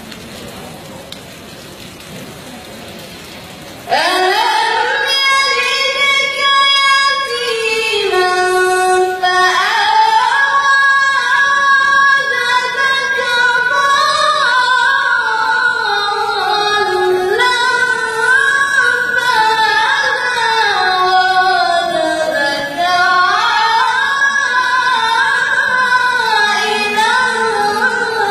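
A woman reciting the Quran in the melodic tajweed style. Her voice comes in about four seconds in after a quieter pause, then carries long, gliding, ornamented phrases.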